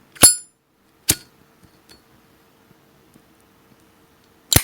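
Brass Zippo lighter handled: the lid flicked open with a ringing metallic clink, a second sharp click about a second later, and the lid snapped shut near the end.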